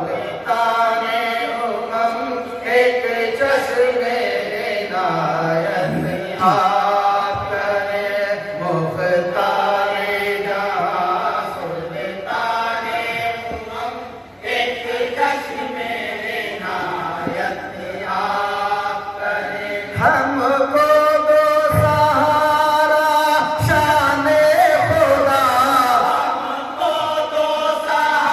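Men's voices chanting an Urdu naat (devotional poem in praise of the Prophet) together, in long melodic phrases of a few seconds each.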